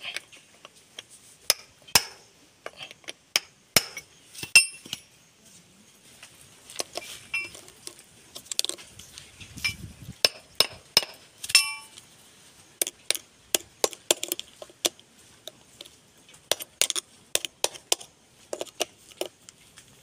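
Hammer blows on a steel drift, driving a new bearing into the eye of a power steering cylinder's rod end. Irregular sharp metallic clinks, some with a short ring, with a few brief pauses.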